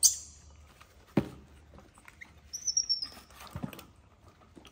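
A baby monkey gives a thin, high squeal for about half a second midway, falling slightly in pitch. Around it are handling noises: a sharp hissing burst at the very start, a knock about a second in, and a thump just after the squeal.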